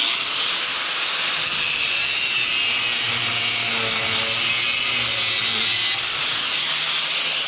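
A power tool starts abruptly and runs at a steady high whine while cutting off a piece of scrap, then stops near the end.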